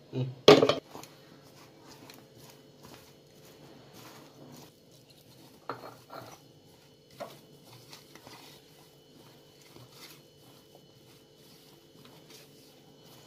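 A steel spoon clatters against a stainless steel bowl once, loudly, about half a second in. Then a hand mixes cauliflower florets in the bowl, with a faint rustle and a few light knocks against the metal around six and seven seconds in.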